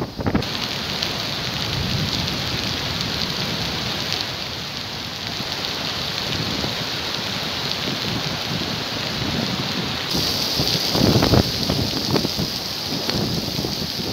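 Heavy rain pouring down, a dense steady hiss of rain on hard surfaces. The hiss turns harsher about ten seconds in, and a couple of short low bursts of noise come near the end.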